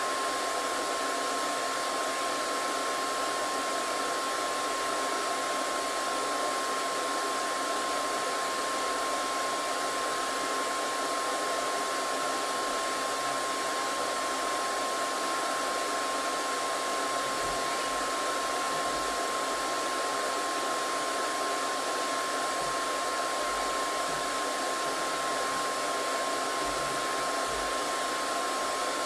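Hair dryer running steadily: an even rush of blown air with a single steady whine, unchanging throughout.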